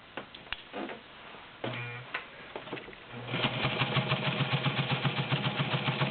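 Vintage White model 614 sewing machine: a few clicks and a brief burst of the motor, then about three seconds in the 1.3-amp motor runs up and the needle stitches steadily in a rapid, even rhythm, sewing through ten layers of cotton-poly fabric.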